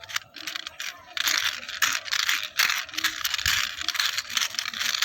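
Rapid, irregular rattling clatter of small hard parts, thickening into a dense run about a second in.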